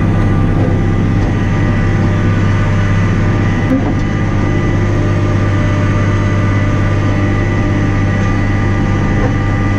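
Massey Ferguson 6480 tractor's diesel engine running steadily under load while driving the PTO of a fertiliser spreader, heard from inside the cab as a deep, even drone with a thin steady whine on top.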